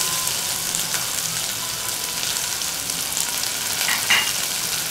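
Sliced onion and cumin seeds frying in hot oil: a steady sizzle with small crackles.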